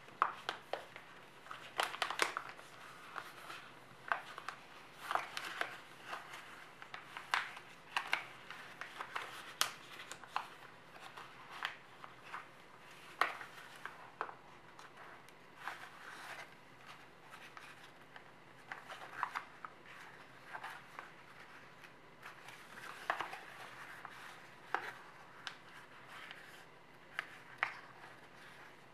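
Sheet of origami paper being folded and creased by hand: irregular crisp rustles and crackles, with sharper snaps as folds are pressed down, some of them in quick clusters.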